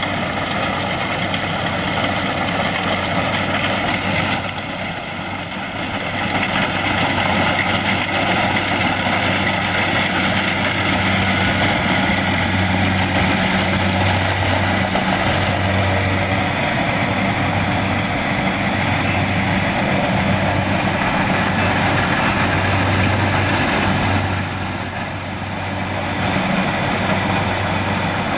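Kubota DC-70 Plus combine harvester's diesel engine and machinery running steadily under load, with a low engine hum over a broad mechanical noise. The sound eases off briefly twice, about five seconds in and near the end.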